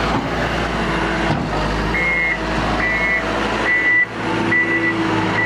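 Komatsu WA200 wheel loader's diesel engine running, and about two seconds in its reversing alarm starts beeping, a little faster than once a second.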